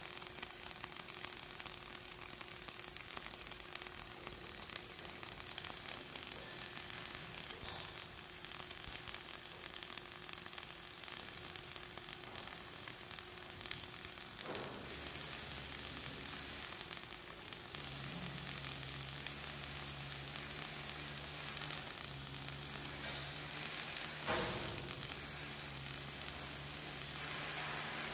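Flux-cored arc welding on carbon-steel plate: the welding arc gives a steady, continuous hiss.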